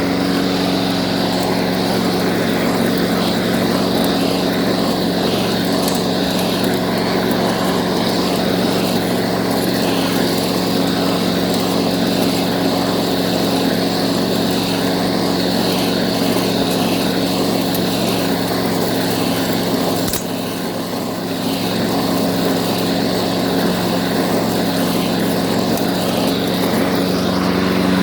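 Small lawn mower engine running steadily at an even pitch, with a brief dip in level about twenty seconds in before it settles back.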